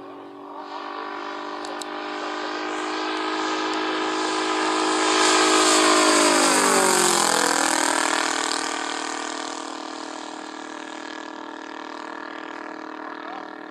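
Valach 120i-4T 120 cc inline-twin four-stroke petrol engine with straight pipes, driving a three-blade propeller on a large-scale radio-controlled Hawker Typhoon in a flypast. It grows louder to a peak about six seconds in, drops in pitch as the plane passes, then runs steadily and quieter as it flies away.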